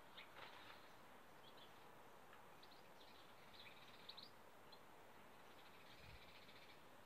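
Faint garden birdsong: scattered short, high chirps and calls, with a quick trill of rapidly repeated notes near the end, over a steady outdoor hiss.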